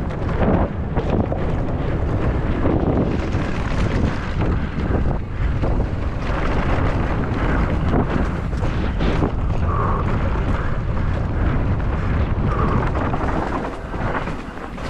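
Wind rushing over the microphone of a mountain bike descending at speed, with frequent knocks and rattles from the bike over rough ground.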